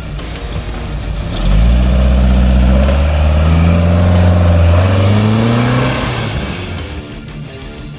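Car engine running, then revving up about a second and a half in, its pitch climbing steadily for about four seconds before easing off.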